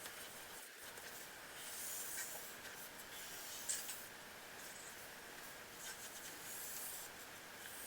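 A short stick of chalk pastel scratching and rubbing across thin paper in quick strokes, tracing lines; faint, swelling and fading with each stroke, with a small tick near the middle.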